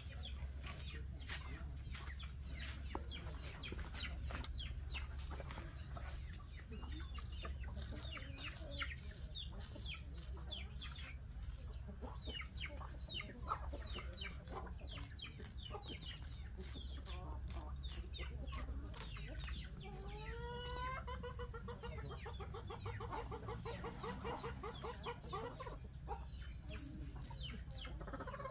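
Farmyard chickens clucking, with many short high chirping calls throughout and one longer call about twenty seconds in that rises and then holds for a few seconds. Faint scraping clicks of a straight razor on beard stubble run underneath.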